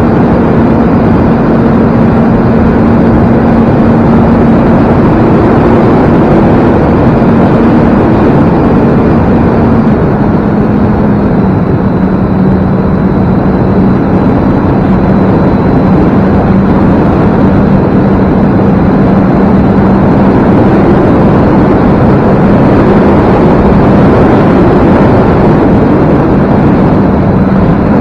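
E-flite Carbon Cub S2 RC plane in flight, its brushless electric motor and propeller giving a steady hum over loud rushing noise. The hum drops slightly in pitch about ten seconds in.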